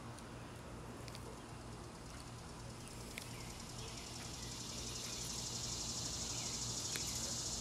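A steady insect chorus chirring, which sets in and grows louder from about halfway through, over a steady low hum, with a few faint ticks.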